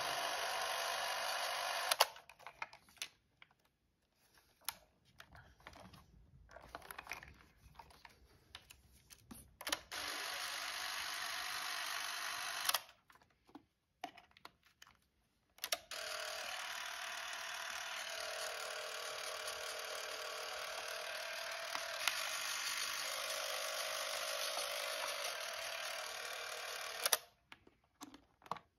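Canon 514XL-S Super 8 movie camera running: its motor whirs steadily in three stretches, about two, three and eleven seconds long, each cutting off abruptly. Clicks and handling knocks come between the runs.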